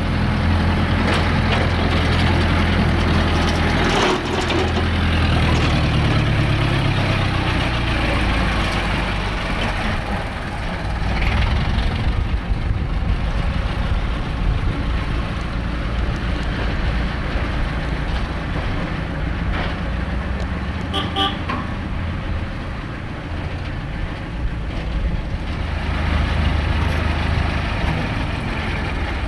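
Small narrow-gauge diesel locomotive engines running at low revs, the engine note rising for a few seconds early on as a loco works. A brief high horn toot sounds about two-thirds of the way through.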